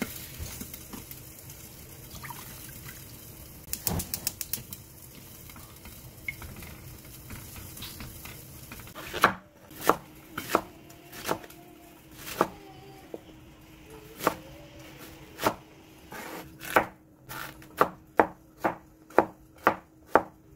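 Kitchen knife chopping onion and Korean zucchini on a wooden cutting board. The cuts start about nine seconds in as spaced single knocks and turn into a quicker run of two or three strokes a second near the end. Before the chopping there is low steady kitchen noise, with a short rapid run of clicks about four seconds in.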